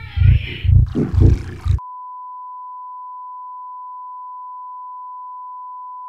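Music with a heavy bass beat about twice a second cuts off abruptly about two seconds in, and a single steady beep like a test tone takes over and holds unchanged for the rest.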